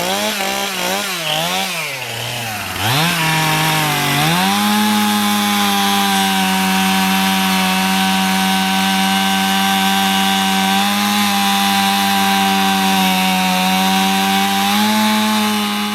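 Chainsaw engine revving up and down in quick blips, dropping, then climbing to a steady full-throttle run about four seconds in that holds to the end, typical of the saw cutting through wood.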